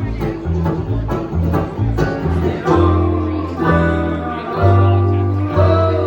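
Live bluegrass band playing an instrumental passage, with banjo and acoustic guitar picking over a bass line that moves from note to note.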